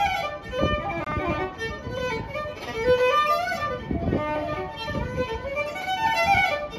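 Solo violin bowed in a tune of quick, changing notes, with low thumps beneath it.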